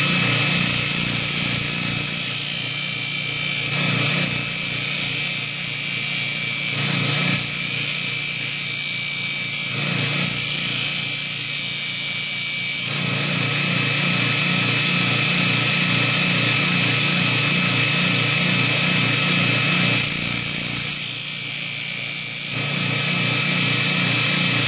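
Baldor 1/2 hp bench grinder running a 100-grit belt over a 10-inch expander wheel, with a steady motor hum. A steel fuller is being ground on the belt, and the grinding hiss shifts every few seconds as the tool is moved over the belt. The grinding is restoring the radius on the back of a fuller damaged by off-centre hammer blows.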